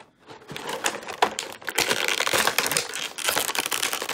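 Thin vacuum-formed plastic packaging tray crinkling and crackling as hands flex it around the action figures. It starts about half a second in with scattered crackles and becomes a dense, continuous crackle from about two seconds in.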